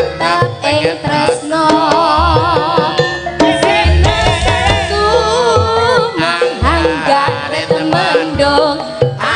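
Javanese gamelan (karawitan) music: a singer's wavering, ornamented vocal line over pitched metal percussion, with deep hand-drum (kendang) strokes marking the rhythm.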